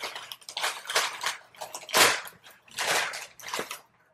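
Brown paper bag crinkling and rustling in a run of short bursts as it is opened and a small candy box is pulled out of it; the sound cuts out abruptly at the very end.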